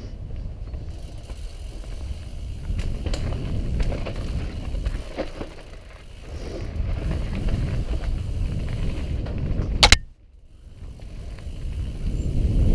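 Mountain bike rolling fast down a dirt singletrack: tyre rumble and rattling of the bike over the rough ground, with wind on the microphone. A sharp clack near the end is followed by a sudden brief hush before the rumble builds again.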